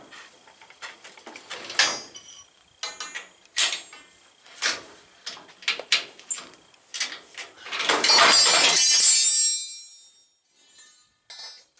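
Metal hand tools clicking and clinking on a car's front suspension, then, about eight seconds in, a loud scraping rattle lasting about two seconds as the coil spring is pulled out from between the lower control arm and the frame.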